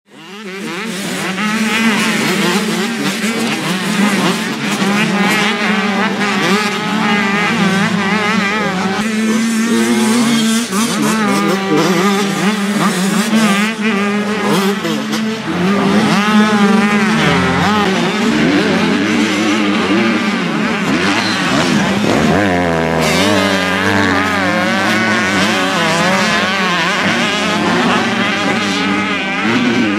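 Several motocross bikes running together, their engines revving up and down over one another in overlapping waves.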